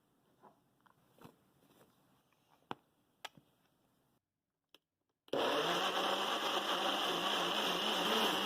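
A few light clicks and taps, then, after a short silence, an electric blender starts and runs steadily, pureeing mango.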